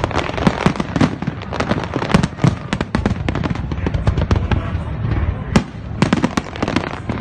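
Fireworks display going off in a dense, continuous barrage of sharp bangs and crackles over a low rumble.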